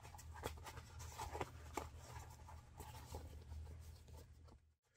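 Faint rustling and scraping of a soft leather cow's knee lock cover being handled and turned right side out, over a low steady hum.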